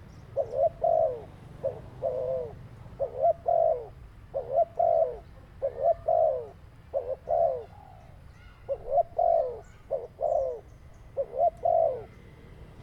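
Dove cooing over and over: short coos in groups of two or three, each note falling in pitch, repeated about every second or so.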